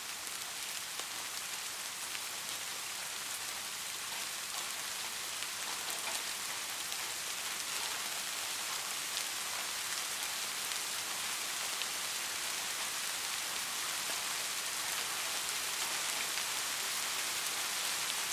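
Steady rain falling: a dense hiss of drops with faint separate drop ticks, growing slowly louder.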